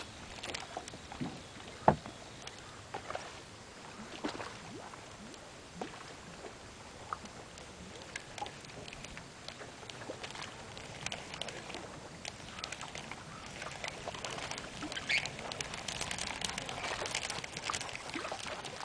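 Small waves lapping and slapping against a boat's hull, with scattered little splashes and knocks, one sharp knock about two seconds in. The splashing grows busier near the end.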